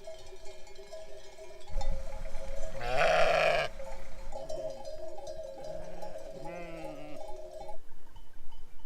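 A flock of sheep around the van, bleating, with bells ringing. The loudest bleat comes about three seconds in, and a shorter, wavering one follows near seven seconds.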